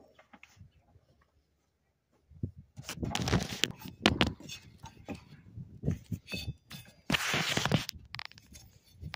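Near silence at first, then irregular plastic clicks, scrapes and rustling from about two seconds in as a windshield wiper blade is handled and fitted to its arm, with two longer rustling bursts.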